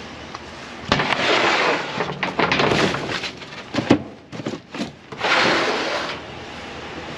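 Cardboard boxes in a dumpster being rummaged: two stretches of scraping and rustling with a run of clicks and knocks between them, one sharp knock near the middle.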